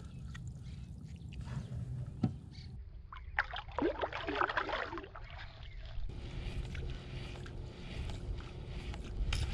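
Water splashing and sloshing beside a kayak hull as a released largemouth bass is let go and kicks away, loudest a few seconds in, over a steady low hum.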